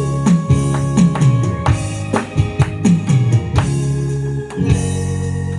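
Instrumental ending of a Korean trot backing track, with no singing: drum kit with bass drum and snare hits over held keyboard chords, with falling low-pitched drum fills. About four and a half seconds in, the drums stop and a held closing chord comes in.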